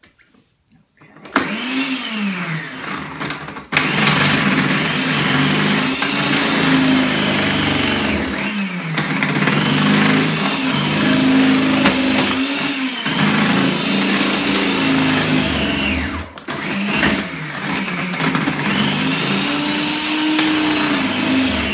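Small electric food processor running, shredding carrots as they are pushed down the feed tube. The motor starts about a second in, and its pitch sags and recovers with the load, with a few brief breaks.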